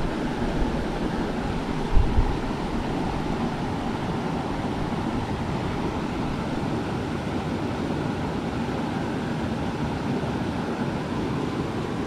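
Shallow mountain river running over boulders and small riffles, a steady rush of water. A brief low gust of wind buffets the microphone about two seconds in.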